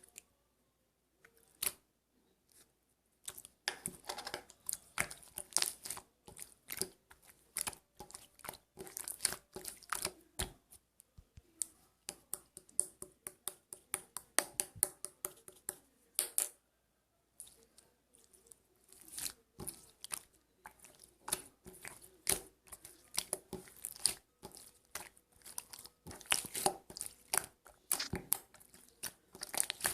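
Slime being squeezed, poked and pressed by hand, giving a dense run of irregular sticky clicks and pops. A few single clicks come first, then steady crackling from about three seconds in, with a brief pause a little past halfway.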